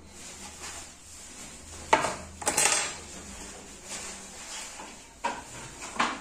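Small metal hand tools clinking and scraping on an electronics repair bench, a few sharp clicks and short scrapes over a low steady hum. The loudest come about two seconds in and just after, with two more near the end.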